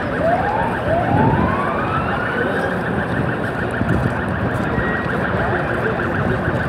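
Emergency-vehicle siren sweeping upward twice: a short whoop, then a longer one that rises and levels off. It sounds over a dense, steady din with a fast, regular pulsing.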